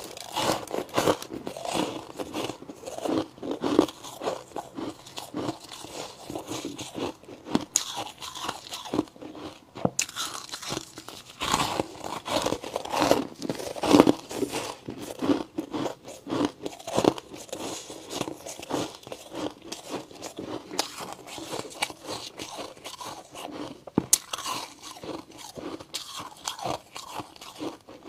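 A person biting and chewing chunks of white humidifier ice, crunching over and over in an irregular run of several crunches a second.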